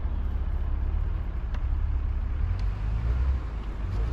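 Compact excavator's diesel engine running with a steady low rumble that swells slightly about three seconds in, with a few faint clicks.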